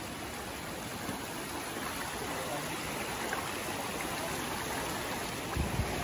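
Shallow stream of monsoon runoff rushing steadily over rocks. A low rumble joins near the end.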